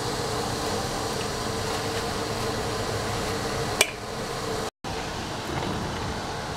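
Water boiling in a wok over a steady fan-like hum, with one sharp click about four seconds in. The sound cuts out briefly just before five seconds and then carries on the same.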